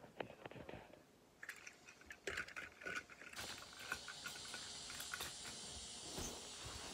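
Small plastic clicks and rattles as the toy train and its tender are handled and set on the track. About three seconds in, a steady whirr starts: the battery motor of the Shooting Star Gordon toy engine switched on and running.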